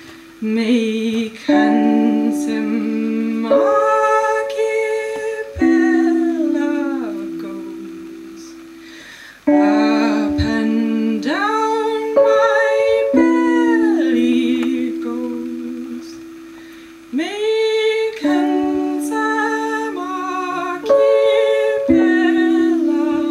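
Live Hohner keyboard playing slow chords, each struck and left to fade over a few seconds, with a woman's voice singing over them and sliding up into some notes.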